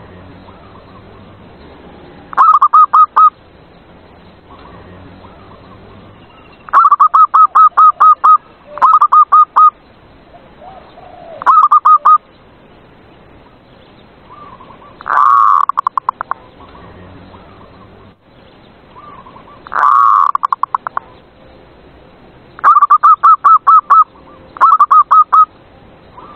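Zebra dove (perkutut) singing: bursts of rapid, evenly spaced cooing notes, repeated every few seconds. About midway come two louder, harsher calls.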